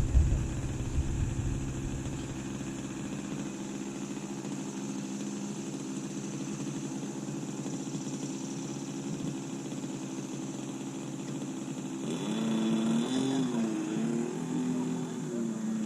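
RC airplane motor and propeller droning at a steady pitch, then rising and falling in pitch several times in the last few seconds.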